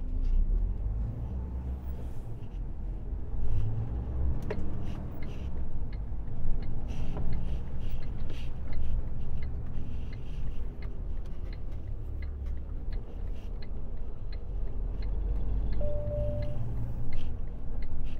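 Inside an Iveco truck cab: the diesel engine and tyres give a steady low rumble as the truck drives slowly, with the turn indicator ticking at an even pace. A short beep sounds near the end.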